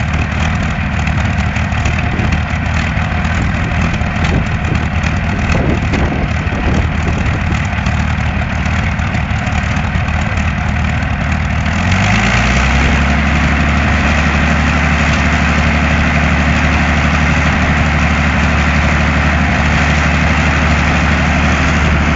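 Rolls-Royce Merlin V12 aero engine on a display stand, running with its propeller turning. It idles steadily, then rises in pitch and gets louder about twelve seconds in, and holds a faster steady speed.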